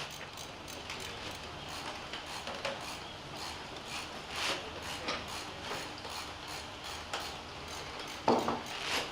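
Irregular mechanical clicking and rattling, with a louder knock near the end.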